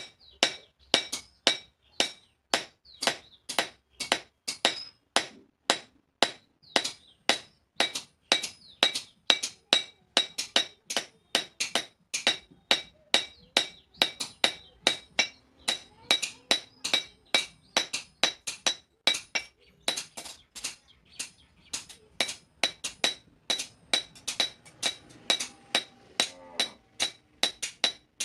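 Blacksmith's hand hammer striking steel on an anvil in a steady rhythm, about three blows a second, each with a bright metallic ring.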